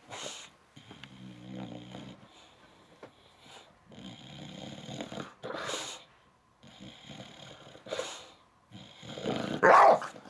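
English bulldog grumbling and growling in an upset tantrum: a series of short throaty outbursts a second or so apart, with a louder one about halfway and the loudest near the end.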